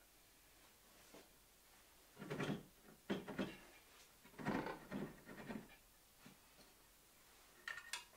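Faint knocks and scraping as the Metabo BAS 261 bandsaw's metal table is handled and tilted on its trunnions, with irregular clunks from about two to six seconds in and a short clatter near the end.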